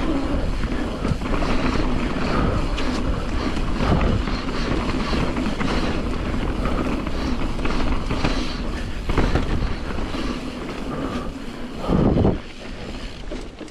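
Nukeproof Giga mountain bike riding down a rough dirt trail: wind buffeting the microphone over tyre noise and a steady run of rattles and knocks from the bike over the ground. About twelve seconds in comes a louder burst, after which the noise is quieter.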